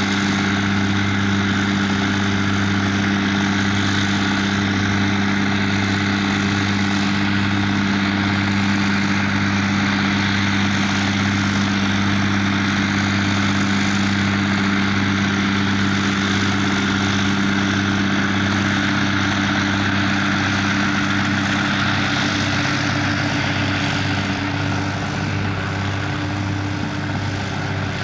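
Schlüter tractor's diesel engine running steadily under load while it pulls a trailed Bleinroth sugar beet tanker harvester, with the harvester's lifting and cleaning machinery adding a steady noisy rush. The engine note drops a little in pitch and level for the last few seconds.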